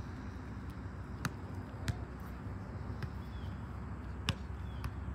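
Sharp smacks of a volleyball being hit or bounced, three louder ones with the loudest about four seconds in and a few fainter ones between, over a steady low hum.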